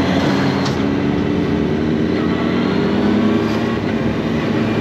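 A motor vehicle running at a steady speed: a steady engine hum with a thin high whine above it.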